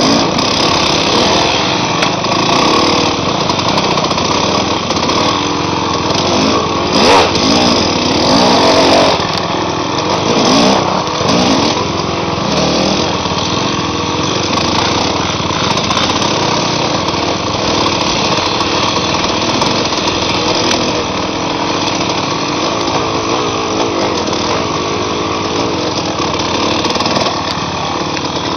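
Small trail bike engine, the Honda XR100's four-stroke single, running loud and steady off-road, its pitch rising and falling with the throttle several times between about 6 and 12 seconds in.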